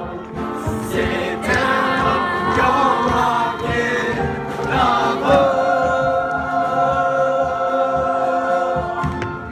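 A school musical cast singing together in chorus, the closing phrases leading into one long held final chord from about halfway through that cuts off shortly before the end.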